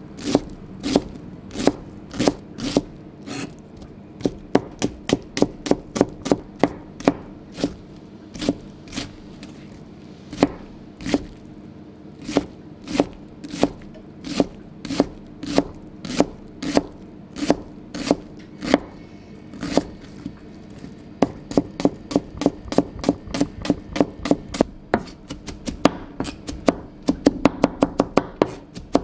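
Kitchen knife mincing onion on a cutting board: a steady run of sharp chops, about two a second at first, speeding up to a quick patter over the last several seconds.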